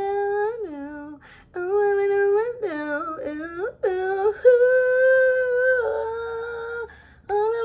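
A woman's voice singing a wordless melody in long held notes, sliding from one pitch to the next, with short breaks between phrases.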